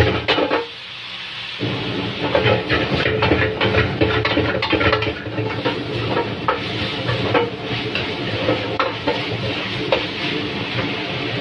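Metal spatula scraping and clanking against a steel wok as tofu and tuna are stir-fried, over a steady sizzle. The scraping pauses briefly about a second in, then resumes with quick, irregular strokes.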